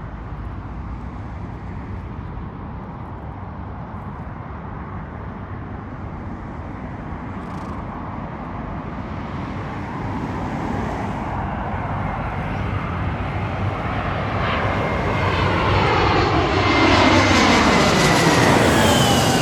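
Airbus A380 jet engines growing steadily louder as the airliner passes close by, the engine whine sweeping down in pitch as it goes past, loudest near the end.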